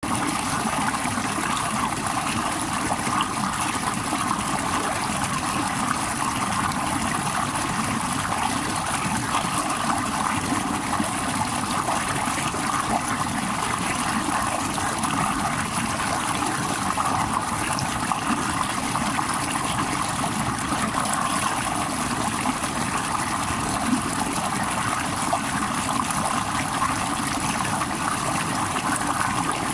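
Small mountain stream spilling over rocks in a short cascade into a pool: a steady rush and splash of running water.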